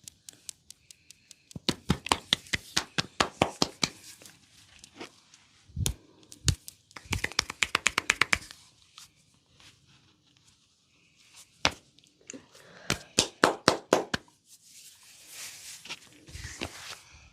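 Massage strokes by hand: three quick runs of sharp slaps, about six a second, with a few duller thumps in between.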